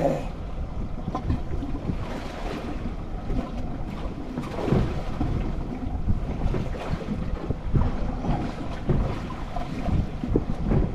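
Wind buffeting the microphone and sea water slapping against a small boat's hull, with irregular low knocks.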